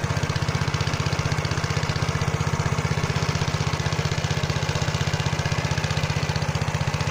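Motor Sich walk-behind tractor engine running steadily with an even, rapid putter.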